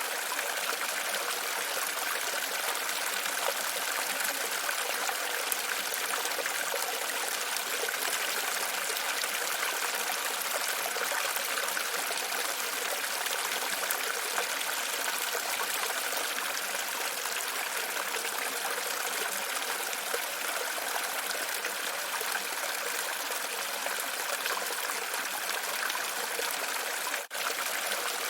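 Steady running water, splashing continuously, with a brief dropout about a second before the end.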